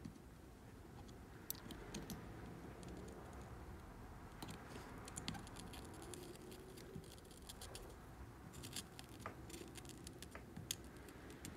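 Faint, irregular crackling and ticking of flux sizzling under a soldering iron as it heats a fluxed wire in a bullet connector, coming in small clusters of clicks.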